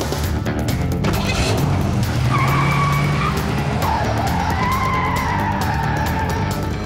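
Car engine revving as it pulls away hard, then tyres squealing in two skids, a short one and then a longer wavering one, as the car slews sideways across the road.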